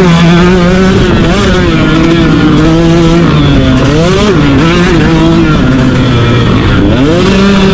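Motocross dirt bike engine running hard under the rider, its pitch falling and climbing as the throttle is worked through the turns. The revs dip and rise again about four seconds in and near the end.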